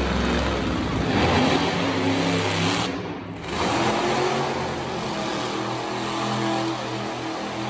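Monster truck engine revving as the truck spins on the dirt arena floor, the revs rising and falling, with a brief drop-out about three seconds in.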